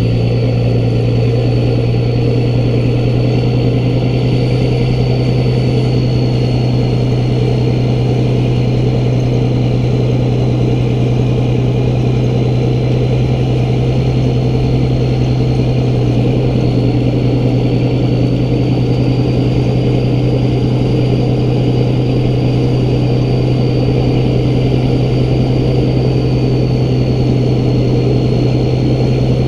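Steady drone of a Peterbilt 388 semi hauling a loaded lowboy trailer at an even road speed, with wind and road noise, picked up on a camera mounted on the excavator riding on the trailer. A faint high whine wavers slightly over the drone.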